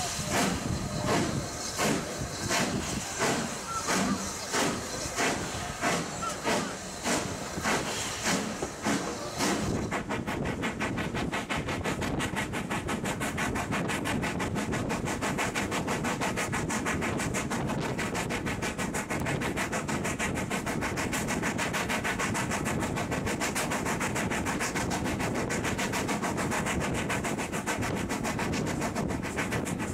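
Steam locomotive pulling a train away, heard from an open carriage window. For about ten seconds its exhaust beats are sharp and separate and come quicker and quicker; they then merge into a steady rush of exhaust and running noise.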